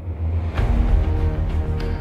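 Background music with a deep, steady bass; a sharp hit about half a second in brings in a fuller part.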